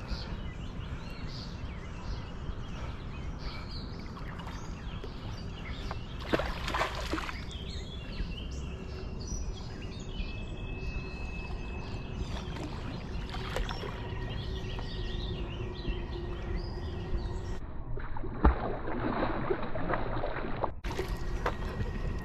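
Hooked carp thrashing at the surface close to the bank, water splashing and sloshing in several short bursts, the longest near the end, over a steady low background rumble.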